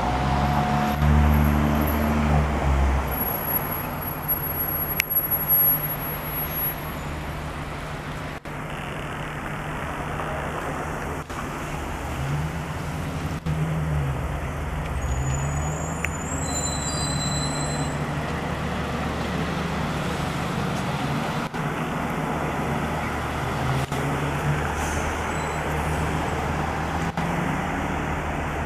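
Busy city street traffic: car and truck engines running with road noise, loudest in the first few seconds, and engine pitch rising and falling a few times in the middle as vehicles pull away.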